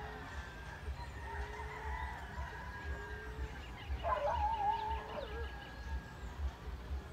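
Emerald dove calling: low hoots, each rising slightly, about every two and a half seconds. Other birds call around it, with a louder wavering call about four seconds in.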